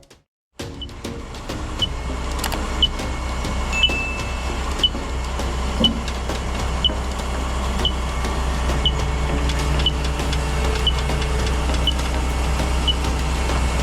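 Excavator's diesel engine running with a steady deep drone, while a warning beeper gives a short high chirp about once a second.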